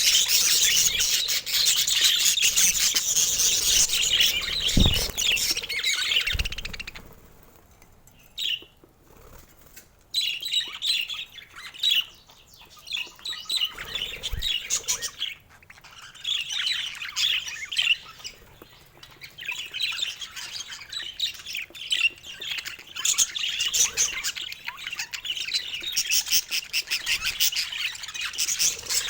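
Baby budgerigar chirping and squawking in fast, dense runs of high calls. The calls stop for a few seconds about seven seconds in, then start again in bouts.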